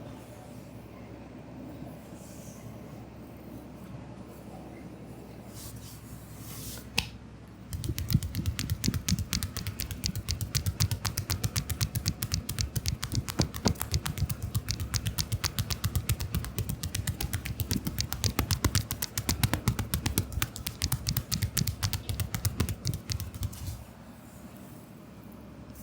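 Massage hands striking the back in a fast, steady percussive run of chopping or tapping, many strikes a second with a dull thud under each. It starts about eight seconds in and stops about two seconds before the end, after a stretch of faint room noise broken by a single click.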